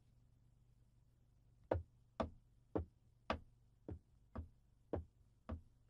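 Footsteps: eight faint, evenly spaced steps, about two a second, starting about a second and a half in.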